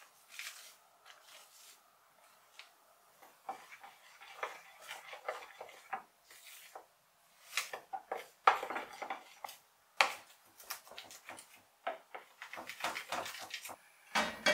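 Kitchen utensils and dishes clinking and tapping at irregular intervals, the clatter getting busier and louder from about the middle on.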